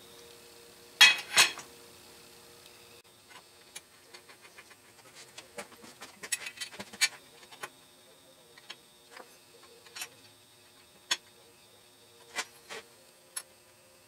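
Light metallic clicks and knocks from parts being fitted onto the steel stop rail of a milling-machine table. There are two louder knocks about a second in, a flurry of small clicks in the middle, then single clicks spaced a second or so apart, over a faint steady hum.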